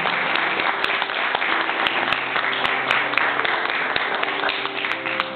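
Congregation applauding: dense, steady clapping from many hands over faint music, ending right at the close.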